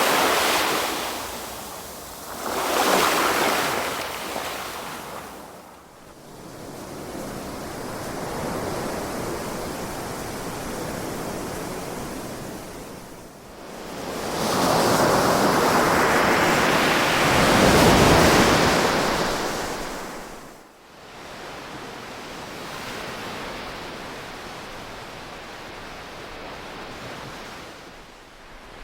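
Ocean waves breaking and washing in, in slow rising and falling surges. Two waves break close together at the start, and the biggest one builds and breaks around 15 to 19 seconds in before it drains away.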